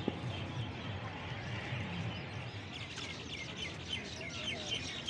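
A chorus of many small birds chirping and twittering, with short rapid calls overlapping and getting busier about three seconds in, over a low background rumble.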